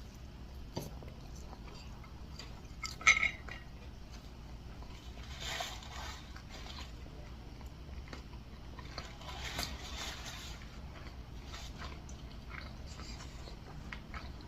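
Quiet eating sounds: soft chewing with a few light clinks of tableware, the sharpest clink about three seconds in.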